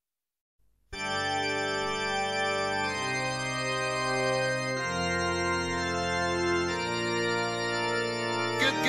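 Silence for about the first second, then music begins: held organ-like chords that change about every two seconds, with quicker struck notes coming in near the end.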